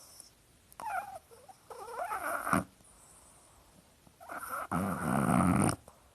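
A sleeping dog snoring, two snores. The first, about a second in, is a wavering, whistly one; the second, near the end, is louder and noisier with a low buzz.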